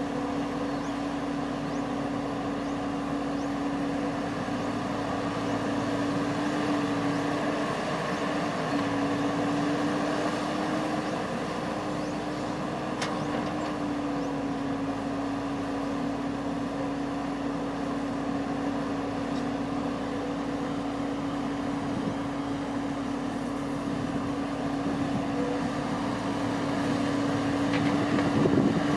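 Engine of a rice-harvesting machine running steadily at constant speed, a continuous drone, swelling slightly near the end.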